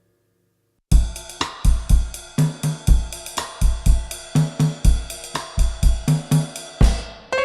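Background music: after a moment of silence, a track starts about a second in with a steady drum-kit beat of kick, snare and hi-hat. Keyboard chords come in near the end.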